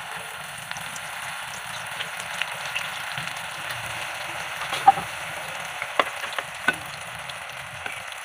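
Banana sticks wrapped in lumpia (spring-roll) skin deep-frying in hot oil in a pot: a steady sizzle from rolls just put into the oil, with a few sharp clicks and pops, the loudest about five seconds in.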